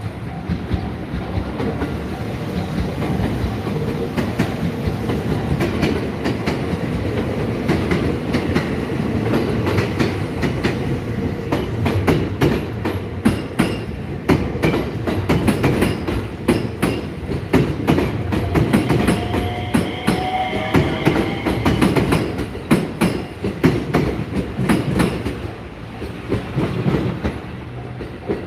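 A train passing over a level crossing, its wheels clacking rapidly over the rail joints, with a brief wheel squeal a little past the middle.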